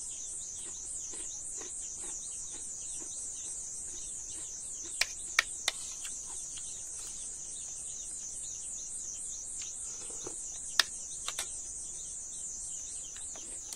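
Steady, high-pitched insect chorus pulsing evenly about three times a second. A few sharp clicks stand out about five seconds in and again near eleven seconds.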